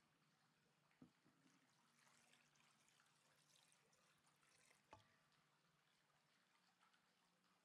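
Water poured faintly from a plastic container into a pressure cooker's inner pot, a soft splashing hiss lasting about three seconds. There is a light knock about a second in and another as the pour ends.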